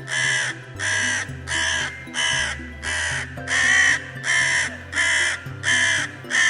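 Crow cawing over and over: about ten caws in a steady, even rhythm, roughly one every two-thirds of a second.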